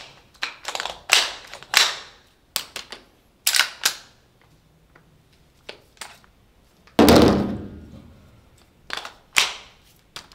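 APFG MPX gas blowback airsoft rifle firing single shots at an irregular, slow pace, each a sharp crack with the bolt cycling. One shot about seven seconds in is louder and heavier than the rest.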